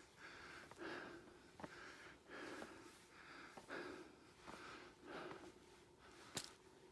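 Hard, quick breathing of a person climbing stone steps, a breath roughly every second, with a few faint clicks and a sharper click near the end.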